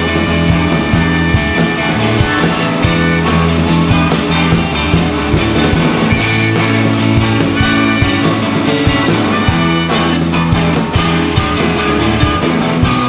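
Blues-rock band playing live and loud: electric guitars and bass over a steady drum beat.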